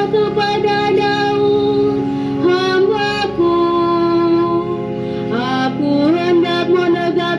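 A woman singing a slow melody with vibrato and long held notes, over sustained instrumental chords.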